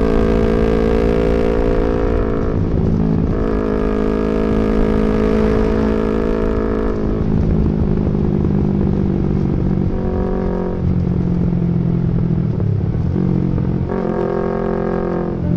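Yamaha MT-25's 250 cc parallel-twin engine running under way, its note shifting up and down in steps several times as the throttle is opened and eased off.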